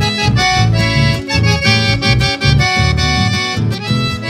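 Instrumental passage of a song led by accordion, with rhythmic bass notes underneath.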